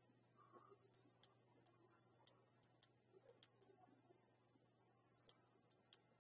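Near silence: faint scattered computer mouse clicks, a few a second, over a low steady hum.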